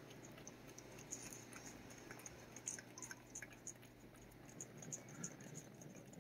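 A cat licking paste treat from a squeeze tube: faint, irregular little wet clicks of the tongue, over a steady low hum.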